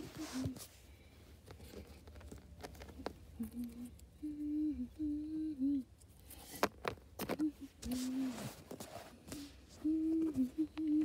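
A person humming a tune in short held notes that step up and down, in phrases from about three seconds in. Scattered sharp clicks and taps of plastic LEGO pieces being handled run through it.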